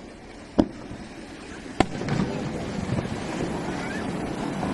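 Fireworks going off: two sharp bangs about a second apart, then a continuous crackle of bursting shells with a few faint whistles.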